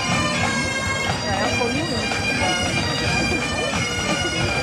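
A marching pipe band's Great Highland bagpipes play a tune over their steady, unbroken drones.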